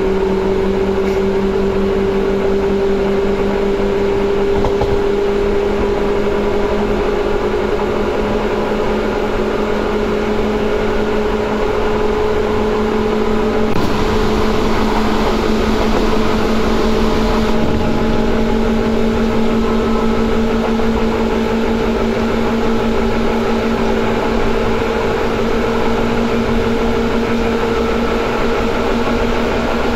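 Seibu 2000 series electric train running, heard from on board: a steady traction motor and gear whine that rises slowly in pitch as the train picks up speed, over continuous wheel and rail noise. For a few seconds near the middle a louder, hissier rush of noise is added.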